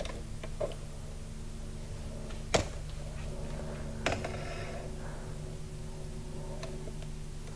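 Steady low hum of a kitchen appliance, with a few light knocks and clicks of the camera being handled and moved. The loudest knock comes about two and a half seconds in, and another about four seconds in is followed by a brief faint rattle.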